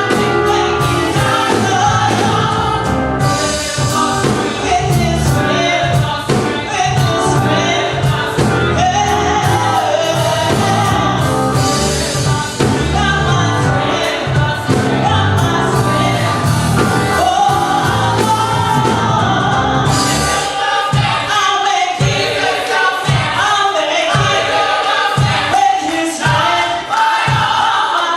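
Gospel choir singing with band accompaniment. About two-thirds of the way through, the steady bass drops away, leaving spaced low beats under the voices.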